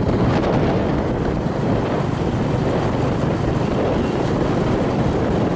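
Wind rushing over the microphone with the steady rumble of a moving vehicle underneath.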